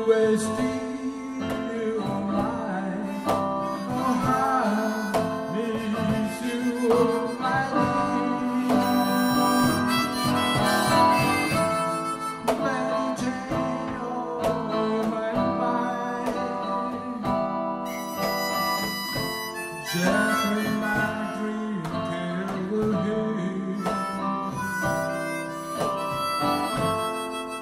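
Harmonica playing a sustained melody into a microphone over a strummed acoustic guitar, with a hand-played cajón keeping the beat.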